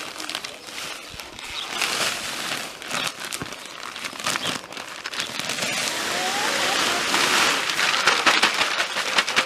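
Crinkling and rustling of a plastic bag of garden soil being handled, a dense run of crackles that grows louder toward the end.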